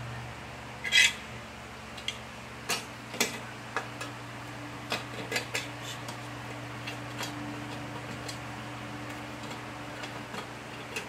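Hand tools and small metal parts clinking and tapping on a workbench: about a dozen light, scattered knocks, the loudest about a second in, over a steady low hum.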